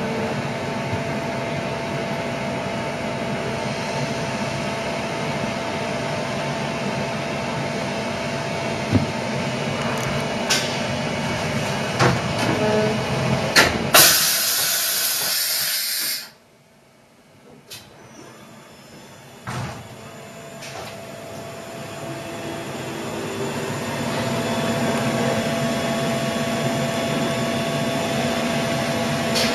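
Mori Seiki MH50 horizontal machining centre running its program: a steady hum of motors and hydraulics with scattered clicks and knocks. About halfway through, as the control reaches the tool-change block, a loud hiss of air lasts about two seconds. Then the machine goes almost silent for a few seconds before its hum builds back up and holds steady.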